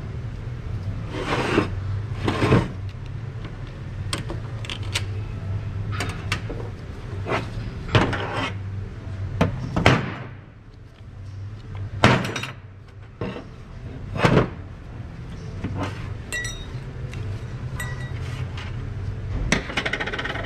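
Steel and friction clutch plates from a Ford 10R80 transmission's CDF clutch drum clinking and clattering as they are pulled out of the drum and handled on a steel workbench, in irregular metallic clanks.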